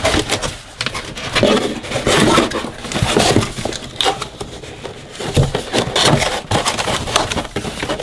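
Cardboard packaging inserts being pulled and shifted inside a box: an irregular run of cardboard scraping, rustling and knocking.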